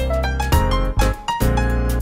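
Background music: a bright keyboard tune over a steady bass line, with new notes starting about every half second.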